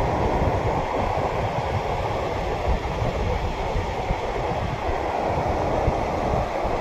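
Steady low roar of turbulent water rushing through river rapids, heard from a small boat close by.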